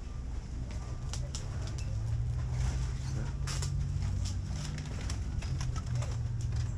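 Grocery store room tone: a low steady hum with scattered light clicks and rustles.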